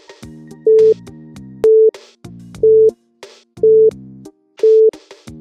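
Quiz countdown timer music: a loud electronic beep once a second over a synthesizer beat with short ticking percussion between the beeps.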